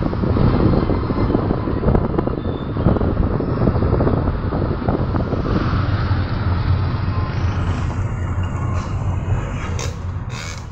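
Road and wind noise from a moving car, with wind buffeting the microphone held out of the window; the rush eases about two-thirds of the way through as the phone comes back inside the car, and a couple of sharp knocks come near the end.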